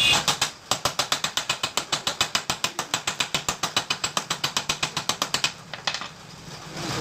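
A ratchet tool being worked in rapid, evenly spaced clicks, about eight a second, that stop shortly before the end.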